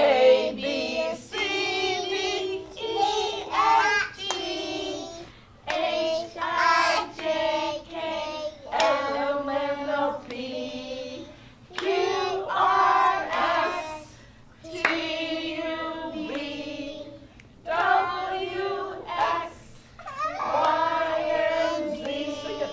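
A woman leads a group of young children in singing a children's song in short sung phrases, with hand clapping.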